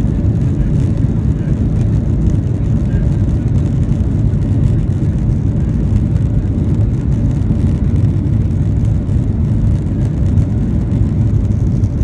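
Boeing 737-800 cabin noise over the wing: the CFM56 engines running at low taxi power, a steady low rumble with a faint hum above it, with no spool-up.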